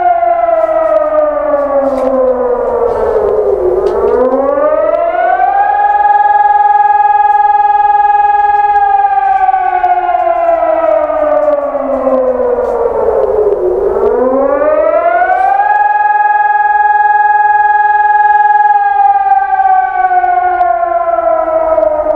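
Civil-defence siren wailing during a test alarm, sounding the rising-and-falling warning tone. Its pitch sinks slowly for several seconds, climbs back quickly, and holds level for a few seconds. The cycle runs twice.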